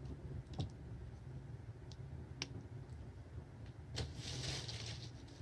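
Handling noise from work on a small motor-and-propeller thrust rig: a few sharp clicks, then a short rustle about four seconds in, over a low steady hum. The motor is not running.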